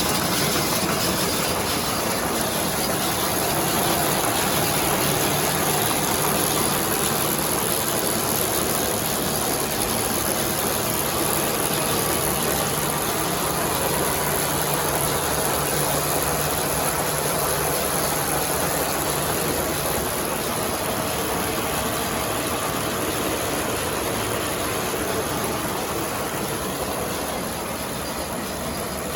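A tractor engine running steadily, with the machinery of a Kuhn VB2160 round baler turning from it.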